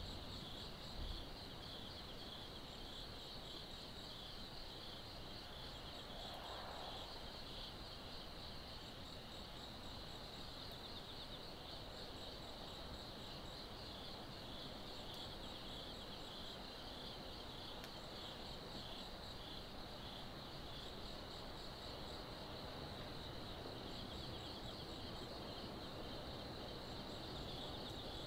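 Crickets chirping steadily in a continuous high, pulsing trill over a faint low background hum, with one soft low thump about a second in.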